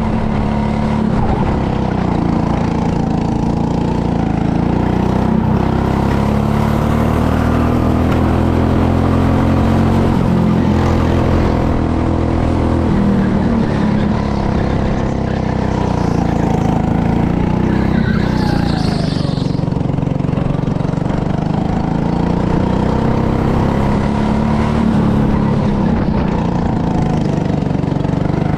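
Go-kart engine running under the driver, its pitch rising and falling over a few seconds at a time as it is accelerated and eased off around the track.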